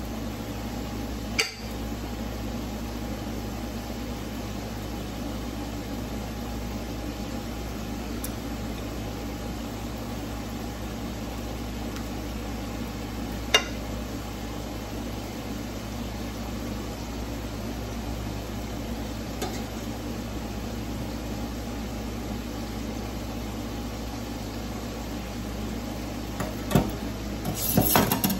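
A steady background hum, with a couple of single sharp clicks of a knife against a plate as ripe plantains are sliced. Near the end comes a short run of knocks and clatter of kitchenware.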